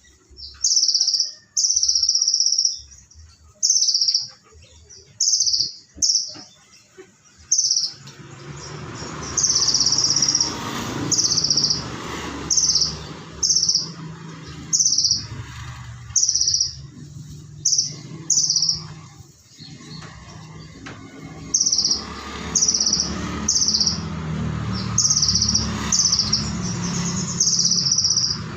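Konin (kolibri ninja sunbird) singing: a series of short, sharp, high-pitched call notes repeating roughly once a second, with gaps between runs. From about eight seconds in, a steady low background noise runs underneath.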